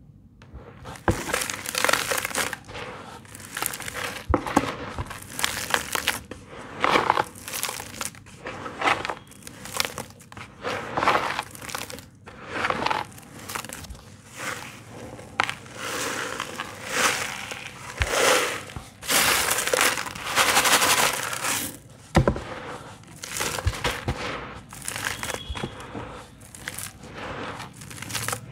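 Dry sand-cement clumps crunching and crumbling under the hands in a plastic basin, in a long run of repeated crushing strokes that start about a second in, with a few sharp knocks among them.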